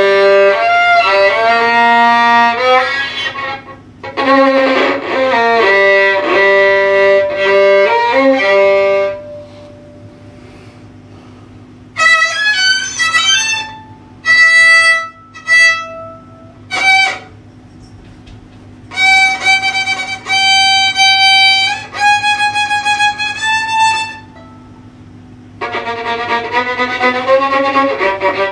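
Solo acoustic violin played with the bow, phrases of held and shorter notes that stop and start again several times with pauses of a few seconds between them.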